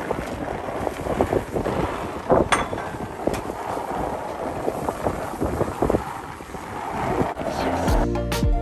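Wind buffeting the microphone in a ragged rumble, with scattered light knocks and clicks as gourd chunks go into a pot and a spatula works it. Background music comes in near the end.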